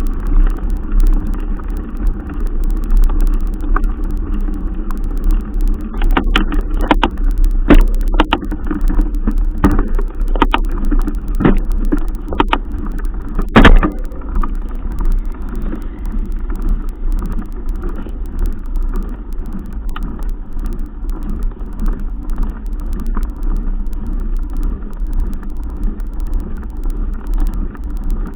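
Steady low rumble of a moving vehicle, road and wind noise on the microphone, with a run of sharp knocks and clicks about six to fourteen seconds in.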